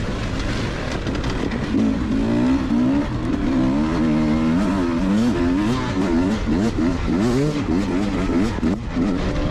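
Beta enduro motorcycle's engine heard from on board, revving up and down again and again as the rider works the throttle over rough dirt trail.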